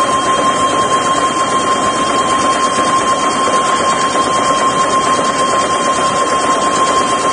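Automatic disposable face-mask production machine running steadily at high speed, a continuous mechanical whirr with a steady high whine.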